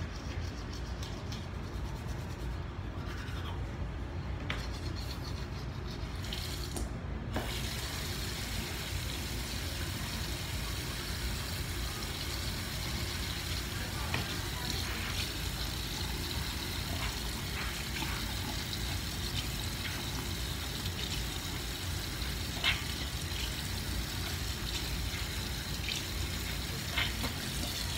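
Water running from a bathroom sink tap, turned on about seven seconds in and left running while the teeth are rinsed after brushing. There are two small knocks near the end.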